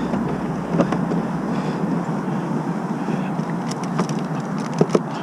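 Steady outdoor background noise with a deep rumble under it that drops away about two seconds in, and a few light clicks and knocks.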